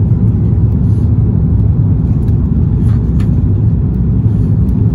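Airliner cabin noise heard from a window seat during the landing approach: a loud, steady low rumble of engines and airflow, with a few faint ticks near the middle.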